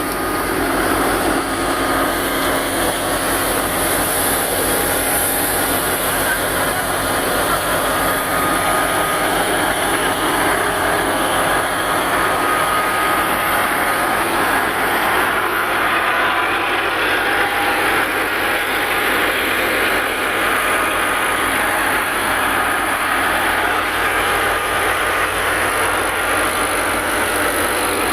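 Tractor-powered wheat thresher running steadily at work, the engine and threshing drum making one dense, unbroken noise.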